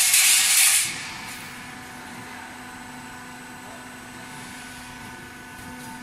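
Cable tray roll forming machine running: a steady mechanical hum with several steady tones. It opens with a loud hiss that fades out about a second in.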